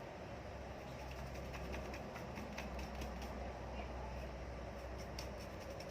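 Small brush scrubbing a phone's circuit board to clean the freshly soldered charging-connector pins: faint, irregular scratchy strokes over a steady low hum.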